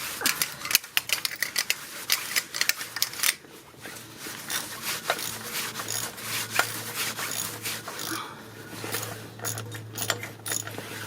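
Quick clicking and rattling of a hand tool on the oil filter housing as it is unscrewed and taken off, dense for about the first three seconds, then sparser clicks and clinks of parts being handled.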